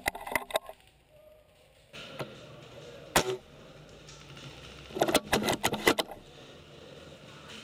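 Airsoft guns firing: sharp snaps at the start, a single shot about three seconds in, and a quick run of shots around five to six seconds in.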